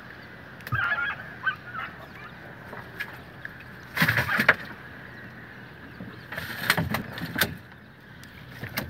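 A wet fishing net being hauled by hand over the side of a small boat, with splashing and knocks against the hull. The loudest bursts come about four seconds in and again around seven seconds. A few short squeaky sounds come about a second in.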